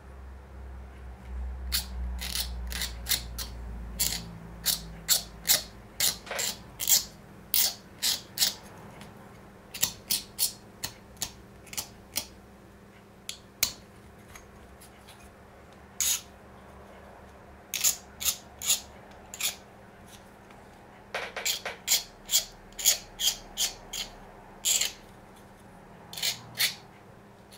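A hand blade scraping along the edge of a 3D-printed plastic part in short, sharp strokes, several in quick succession, then a brief pause, then more. The blade is trimming off the elephant-foot flare on the face that printed against the bed.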